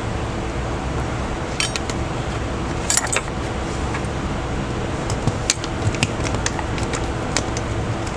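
Light clicks and taps of small hard objects being handled, a few at a time then a scattered run of them, over a steady fan-like hum.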